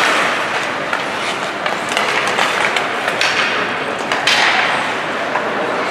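Ice hockey play on a rink: a steady scraping hiss of skates on the ice, scattered with sharp clacks of sticks and puck. A louder burst of hiss comes a little after four seconds in.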